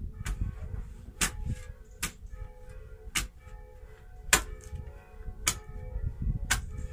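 Steel garden spade chopping into dry, lumpy soil, breaking up clods to level the bed: a sharp strike about once a second.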